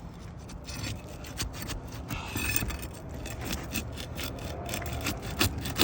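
Pry bar scraping and prying under asphalt shingles to break their sealant, with irregular crackling and sharp clicks from the brittle shingles, the clicks sharper near the end.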